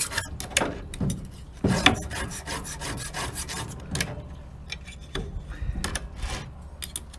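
Hand file rasping across the cutting teeth of a skip-tooth chainsaw chain on its bar, in short separate strokes with pauses between them.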